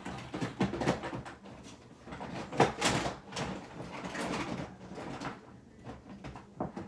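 Rummaging through small objects by hand: a string of knocks, clicks and rustles, loudest about two and a half to three seconds in.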